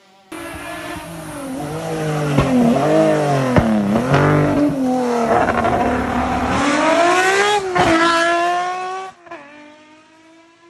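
Rally car engine revving hard on a stage, its pitch dropping and climbing again several times as it brakes and accelerates through the gears, with three sharp cracks along the way. After about nine seconds it gives way to a quieter engine sound.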